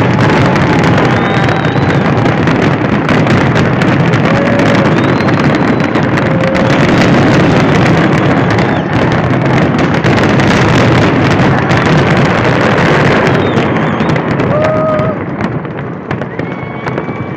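Aerial fireworks shells bursting in a rapid, overlapping finale barrage of booms and crackles, easing off a few seconds before the end. Crowd voices and a few shouts rise over it.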